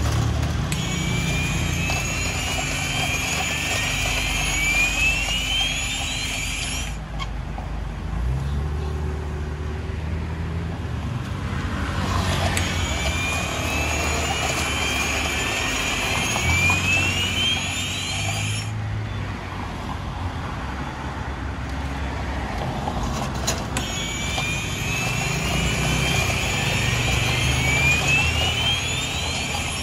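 Carbonated soda water hissing from a dispenser tap into a plastic cup of ice, three separate fills of about six seconds each, each with a tone that rises as the cup fills and then cuts off. Road traffic rumbles underneath.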